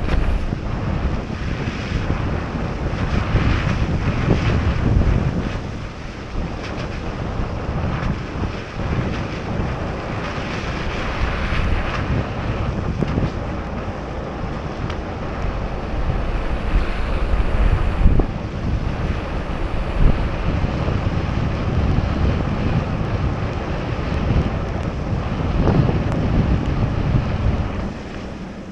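Wind buffeting the microphone of an action camera on a moving car, a rough low rumble, over the steady hiss of tyres on the wet road.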